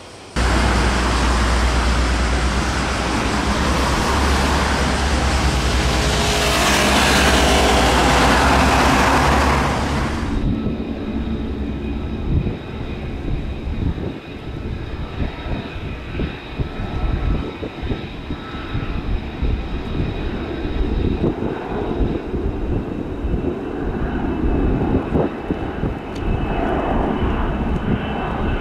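A loud, rushing roar with a deep rumble for about the first ten seconds, cutting off abruptly. Then an F-35B's jet engine whines with several steady high tones over an uneven rumble as the fighter hovers down for a vertical landing.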